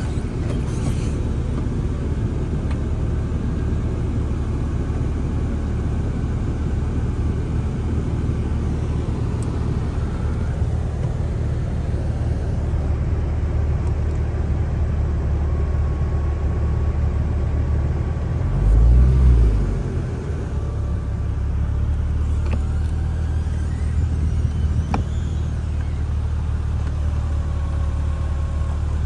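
Porsche 996 Turbo's twin-turbo flat-six idling steadily, heard from inside the cabin. The low rumble swells briefly about two-thirds of the way through.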